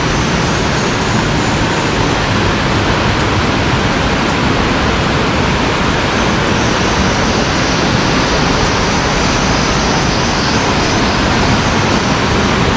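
Waterfall rushing steadily: a loud, even wash of falling water.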